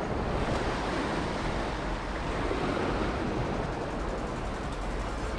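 Steady rushing of turbulent tailwater boiling up below a dam, with wind buffeting the microphone.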